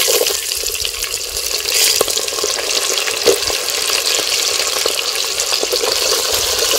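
Small onions sizzling steadily as they fry in hot cold-pressed groundnut oil in a clay pot, with a few clicks and scrapes of a coconut-shell ladle stirring against the pot.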